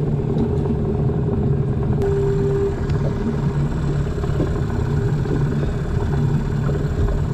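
Mariner 10-horsepower outboard motor on a small skiff running steadily at an even speed, with no revving.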